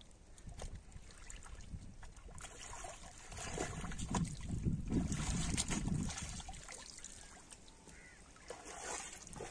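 Seawater splashing and sloshing as fish are rinsed by hand in a plastic tray in shallow water, busiest from about three to six seconds in, over a steady low wind rumble on the microphone.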